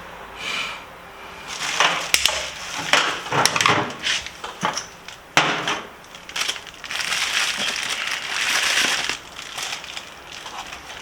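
Plastic parts being handled: a run of sharp clicks and rattles, then a longer crinkling rustle about seven seconds in.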